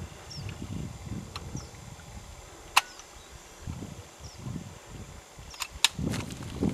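Rifle being loaded by hand: sharp metallic clicks from the action and cartridges, the loudest about three seconds in and two more close together near the end, over a low rustle of handling.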